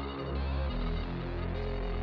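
Background music: sustained chords over a deep bass, with the chord changing about a third of the way in.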